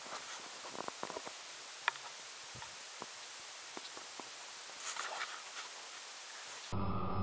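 Steady hiss with scattered faint ticks and short chirps. Near the end it cuts suddenly to the louder, steady hum of the DJI Phantom quadcopter's motors and propellers, heard through its onboard camera.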